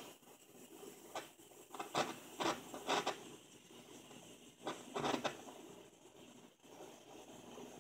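Steady hiss of a gas torch flame heating a model hot-air engine, broken by several short scraping clatters, a cluster about one to three seconds in and another about five seconds in.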